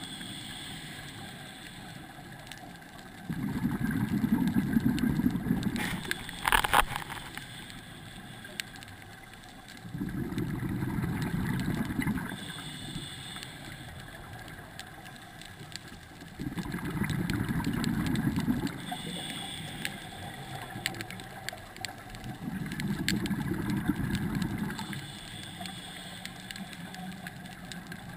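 Scuba diver breathing through a regulator underwater: four rumbling bursts of exhaled bubbles, each two to three seconds long, about every six seconds, with quieter stretches between. A single sharp click comes about six and a half seconds in.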